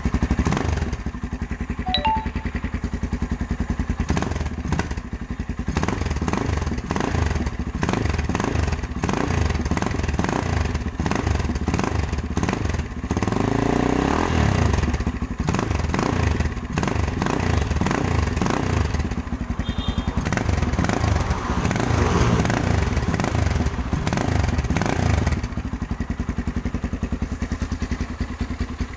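Z200X motorcycle exhaust running with the silencer insert fitted, idling with light revs, the biggest one rising and falling about halfway through. The stock canister has been repacked with denser fibre around a straight perforated tube.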